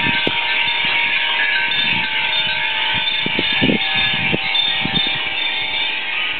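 Hundreds of Japanese glass furin wind chimes ringing together in a strong wind, a dense continuous high jingling, with occasional short low rumbles.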